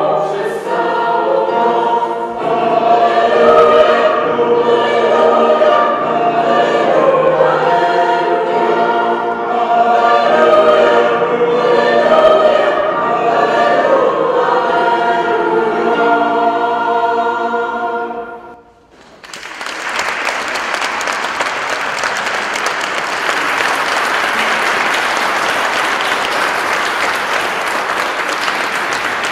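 Mixed choir of men and women singing a Christmas carol, closing on a held final chord about two-thirds of the way through. After a brief pause the audience breaks into steady applause.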